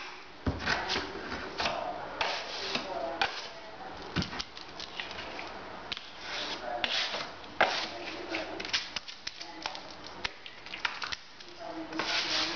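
Steel plastering trowel scraping wet plaster out of a plastic bucket and loading it onto a plastic hawk: irregular scrapes and sharp clicks and taps of the blade on the bucket rim and hawk, with soft slaps of plaster.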